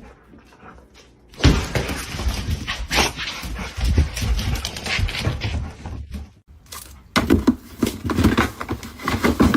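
A dog making vocal sounds amid loud scuffling noise, starting suddenly about a second and a half in, with a short break about six seconds in.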